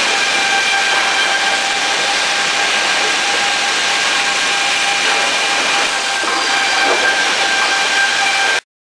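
Wood planer running: a loud, steady rushing noise with a high, even whine from the spinning cutterhead. It stops abruptly near the end.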